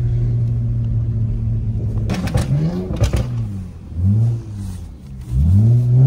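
Car engine held at steady high revs for a couple of seconds, then a choppy stutter, then the throttle blipped so the revs climb and fall twice, the sound of the car being pushed into slides on snow.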